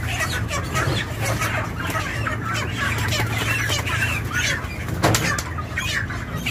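Many broiler chickens squawking and clucking as they are carried upside down by their legs and loaded into crates, over a steady low hum. A sharp knock about five seconds in.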